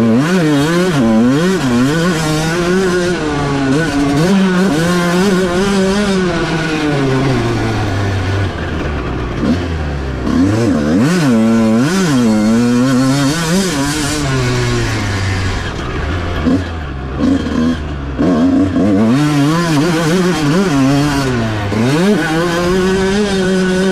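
1996 Honda CR125's 125cc two-stroke single-cylinder engine being ridden, revving up and down again and again as the throttle opens and closes, with quick rapid rises and drops near the middle.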